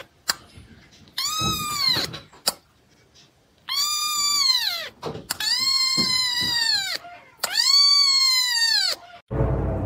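Very young kitten meowing loudly and high-pitched, four calls of about a second each, every one rising and then falling in pitch.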